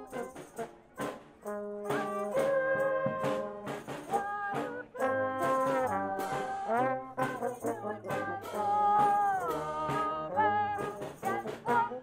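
Brass street band playing a pop-song arrangement: trumpets and trombones in several parts over percussion hits, with some horn notes sliding down in pitch a few times.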